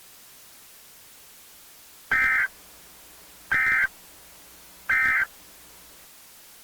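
Emergency Alert System end-of-message signal: three short bursts of SAME digital data tones, evenly spaced about a second apart, over a steady static hiss. It marks the end of the alert.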